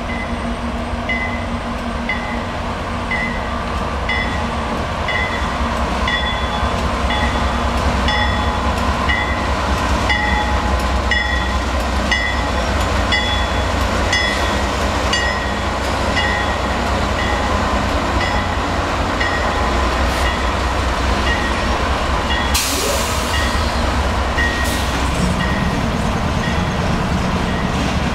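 Canadian National diesel-hauled freight train passing close by: the low rumble of the locomotives, then the steady rolling of tank cars and hoppers over the rails. A bell dings about once a second through most of it. About 22 seconds in there is a brief high hiss lasting a couple of seconds.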